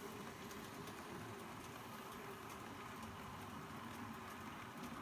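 H0-scale model train of tank wagons rolling along the track: a steady rumble of metal wheels on the rails, with faint irregular clicks as the wheels cross the rail joints.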